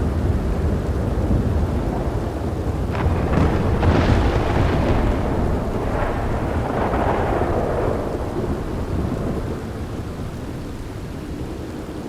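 Steady rain with a rolling thunderclap: sharp crackles about three seconds in build into the loudest rumble around four seconds, which then rolls on and dies away over the last few seconds.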